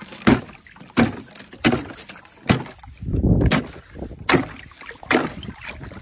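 Ice on a livestock water trough being broken: a series of sharp cracking strikes less than a second apart, with water splashing and sloshing, the heaviest splash about three seconds in.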